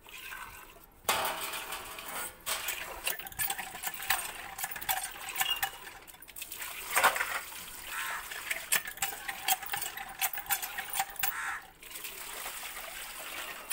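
Water buffalo being milked by hand: streams of milk squirting into a steel pail in a quick run of spurts, with a few short pauses.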